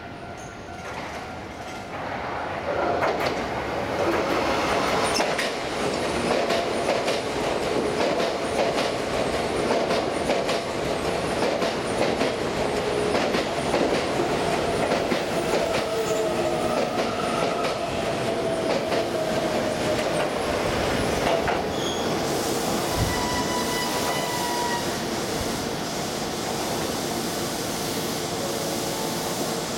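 Keisei AE-series Skyliner electric train passing close by through a station, growing louder over the first few seconds. Its wheels clatter over the rail joints, and a whine slowly falls in pitch as the cars go by.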